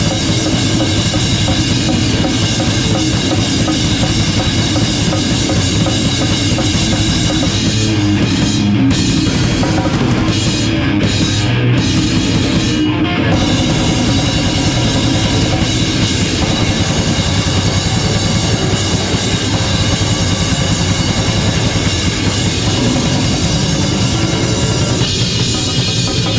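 Live rock band playing loud, with the drum kit and bass drum to the fore.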